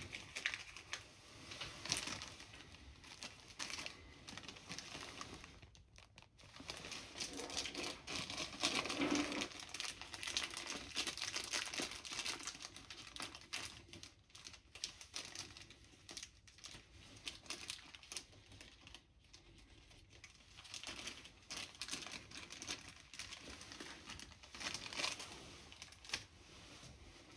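Crinkling, rustling handling noise with many small, light clicks, coming in spells and busiest about a third of the way through.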